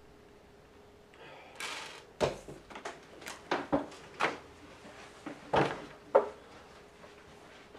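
A run of sharp wooden knocks and clacks as people get up from a table, chairs and objects being moved and set down, starting about two seconds in after a short rustle, over a faint steady hum.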